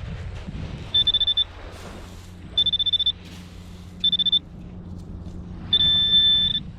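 Handheld metal-detecting pinpointer beeping as it is worked over a buried target: three short spells of rapid high-pitched pulses, then near the end a steady unbroken tone. The unbroken tone means the probe is right on the metal.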